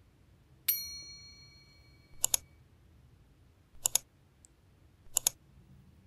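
One bright synthetic chime ding that rings and fades, then three quick double mouse clicks about a second and a half apart: the sound effects of a YouTube like-and-subscribe button animation.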